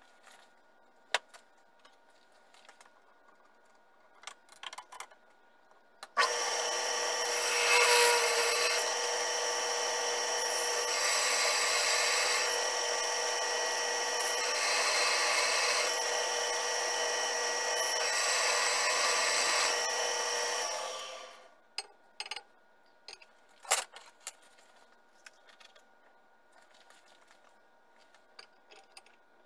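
Drill press starting up and running for about fifteen seconds while it cuts into a small metal crankshaft blank held in a chuck, with four spells of harsher cutting noise, then winding down. A few light metal clicks and taps come before and after.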